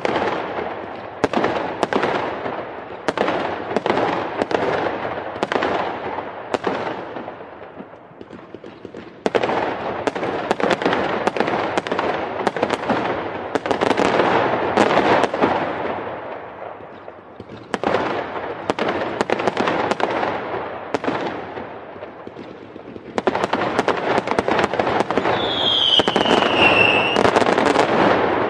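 Aerial fireworks display: shells bursting in many sharp bangs, each followed by crackling, in waves that swell and fade. A whistle falls in pitch near the end.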